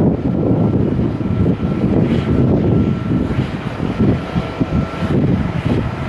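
Jet airliner engines running at climb power as the airliner climbs away after takeoff, with a thin steady whine that stops about five seconds in. Strong gusting wind buffets the microphone throughout.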